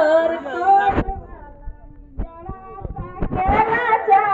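Voices singing in held, wavering notes, breaking off for about two seconds in the middle, where a few low knocks are heard.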